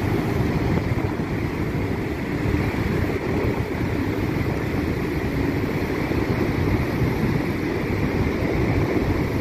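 Steady rushing roar of Niagara Falls, mixed with wind buffeting the microphone.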